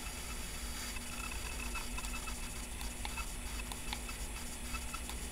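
Faint, scattered small clicks of a plastic bike light being handled, over a low steady hum.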